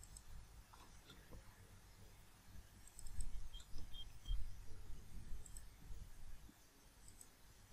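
A few faint computer mouse clicks, with low bumping rumble from about three to six seconds in.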